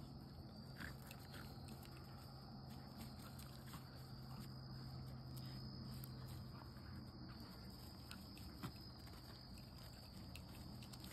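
Faint outdoor ambience: insects chirring steadily over a low, even hum, with a few soft ticks and rustles as two dogs tug and tussle on grass and fallen leaves.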